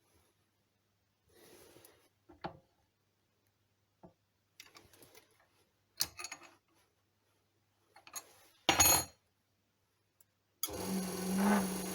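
Small metal handling noises, scattered clicks and rubs, with a loud clatter near 9 s as the metal lathe is set up; then, near the end, the lathe motor switches on and runs with a steady hum and a high whine, ready to drill a brass rod.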